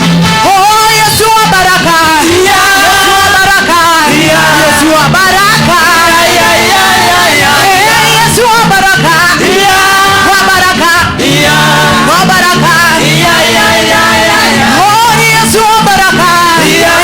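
Loud upbeat gospel music with singing and a steady bass line, played for dancing in worship.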